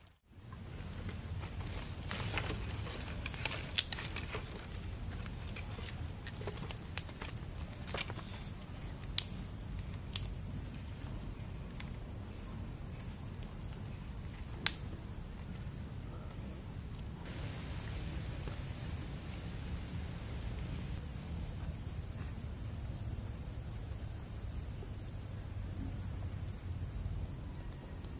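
Steady high-pitched chorus of insects, with a few sharp clicks and knocks of sticks being handled.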